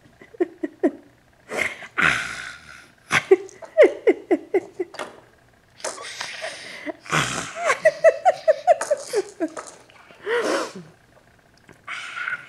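Baby's vocal outbursts: forceful, breathy 'hah' exhalations alternating with runs of short, high-pitched laughing squeals.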